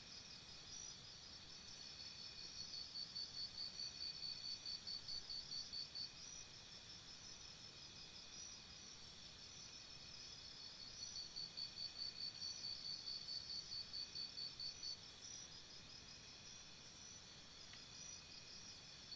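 Faint insect chirping: high-pitched pulses at about four or five a second, in bouts of a few seconds that stop and start again, over a soft steady hiss.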